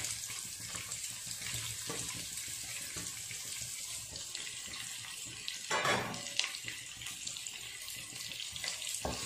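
Hot tempering oil sizzling steadily in a nonstick kadai as chopped onion is tipped in and stirred with a wooden spatula, with a brief louder scrape about six seconds in.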